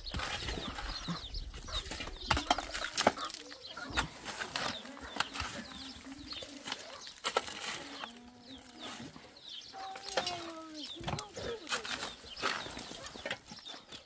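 Steel shovels scraping into stony, gravelly earth and tipping dirt and rocks into a metal wheelbarrow: a steady run of scrapes, knocks and clatters.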